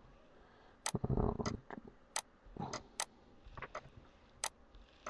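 Computer mouse and keyboard clicks while a web form is filled in: about eight sharp clicks at uneven intervals, with a duller knock about a second in, the loudest sound.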